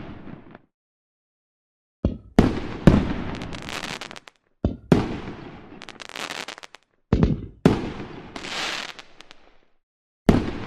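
Fireworks shells bursting: clusters of two or three sharp bangs about every two to three seconds, each followed by crackling that fades away, with brief silences between clusters.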